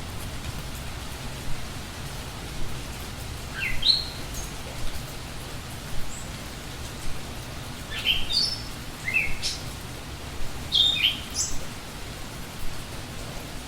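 Steady rain falling, with scattered drops, while a small songbird chirps in short rising notes in a few separate bursts.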